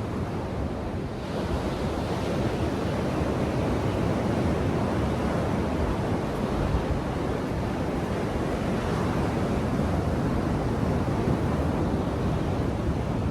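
Ocean surf washing onto a beach, a steady rush that swells about a second in.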